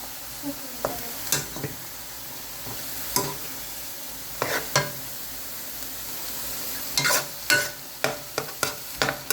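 Food frying in a hot wok, sizzling steadily, with a stirring utensil knocking and scraping against the wok at irregular moments, several times in quick succession near the end.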